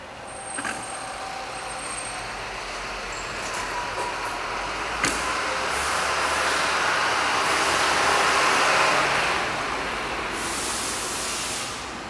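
Seagull-bone whistles blown by compressed air: a breathy rushing hiss with faint thin whistle tones in it, swelling to its loudest past the middle and easing off near the end. Two sharp clicks, one near the start and one about halfway through.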